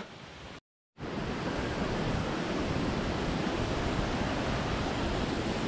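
Steady rush of falling water from a waterfall, with some rumble of wind on the microphone. A moment of dead silence at a cut just before it begins.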